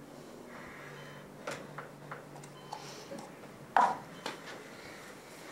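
A few light knocks and taps over a faint low hum of room tone, with one louder knock about four seconds in.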